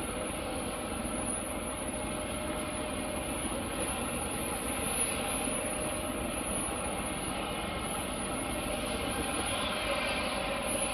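Steady background drone of running machinery with a constant high-pitched whine, unchanging throughout.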